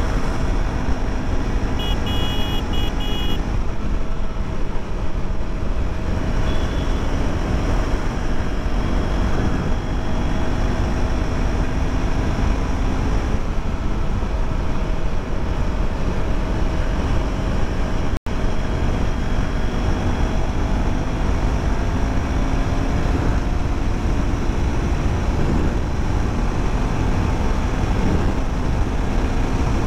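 2024 KTM 390 Duke's single-cylinder engine running at road speed, its note drifting slowly up and down under a heavy low rumble of wind and road noise. A short series of high beeps sounds about two seconds in, and the sound drops out for an instant about two-thirds of the way through.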